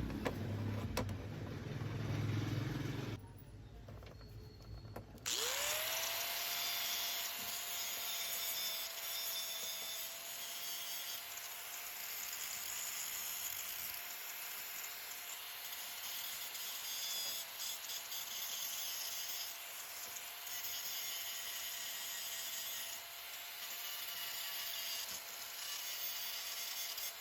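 An electric power tool's motor spins up about five seconds in and then runs at a steady pitch with a harsh high hiss, as of cutting or grinding metal.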